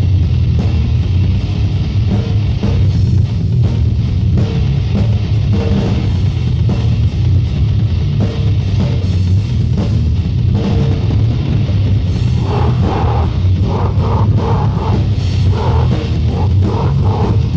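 Death metal from a 1994 demo tape: a loud, dense wall of distorted electric guitar and drum kit with a heavy low end, running without a break.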